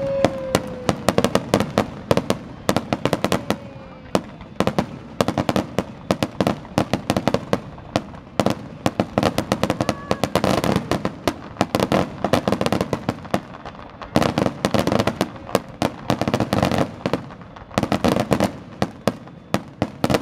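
Aerial fireworks shells bursting in a rapid, continuous barrage: several sharp bangs a second with crackling between them.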